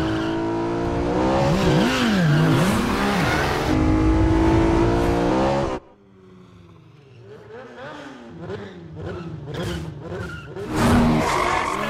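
Sport motorcycle engines revving hard at high speed, their pitch rising and falling repeatedly. The sound cuts off abruptly about halfway through. A fainter motorcycle engine then builds up again and is loud near the end.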